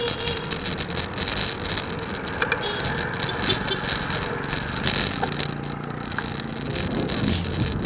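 Street traffic: motorcycle and car engines running close by, with frequent small clicks and rattles over the steady noise.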